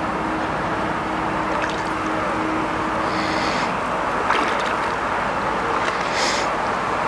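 A hooked carp splashing at the surface beside a landing net a few times, over a steady background hiss.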